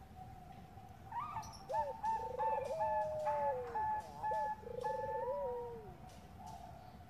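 Zebra doves (Bangkok perkutut) cooing. About a second in comes a run of short repeated notes, layered over lower trilled coos that rise and fall; it fades near the end.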